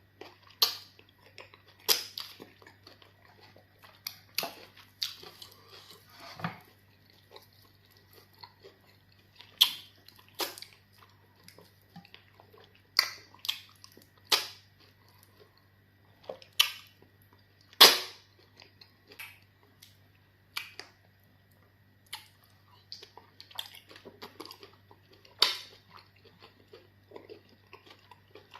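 Close-miked mukbang eating of amala fufu with okra soup: wet mouth smacks and chewing sounds at irregular moments, every second or two, some sharp and loud. A faint steady hum runs underneath.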